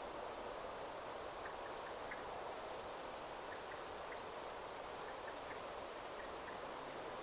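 Steady rush of wind through forest trees, with faint short bird chirps scattered through it.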